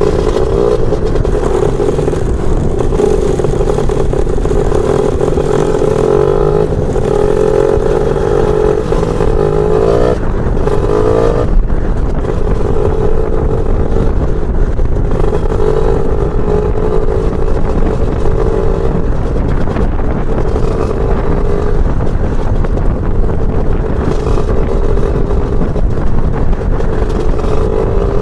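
Lambretta scooter with a BFA 325-type two-stroke engine, ridden. The engine note climbs, drops sharply about ten seconds in, then holds steadier.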